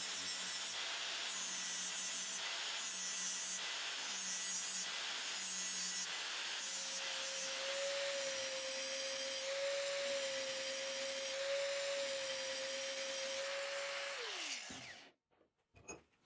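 Angle grinder with a thin abrasive cut-off disc cutting notches into a hardened high-speed steel blank, a steady grinding hiss. About fourteen seconds in it is switched off and its whine falls in pitch as the disc spins down.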